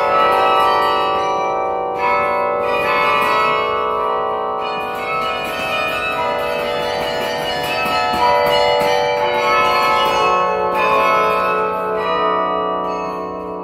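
The 54-bell Yale Memorial Carillon played from its baton keyboard: many tuned bells struck in quick succession, their long ringing tones overlapping into a dense wash of chords. In the last second or two the high notes drop away, leaving lower bells ringing on.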